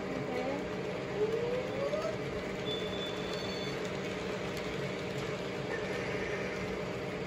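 Toy electric trains running on a layout: a steady whir and rumble of their motors and wheels on the track, with a short rising tone about a second in and a brief high tone around three seconds.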